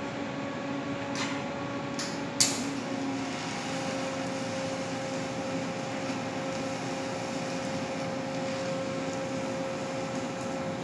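Electric arc welding on steel: a steady electric hum with a hiss. A few sharp clicks come about two seconds in, the loudest just after, and the hum grows steadier as the weld runs.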